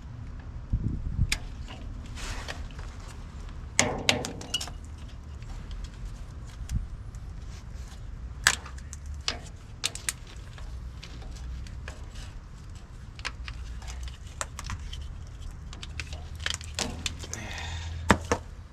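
Hand tools clinking and clanking against metal during wrench work: scattered sharp clicks and short rattling clusters, over a steady low hum.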